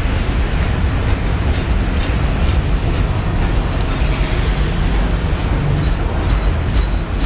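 Autorack freight cars rolling past at close range: a steady, heavy rumble with faint irregular wheel clicks.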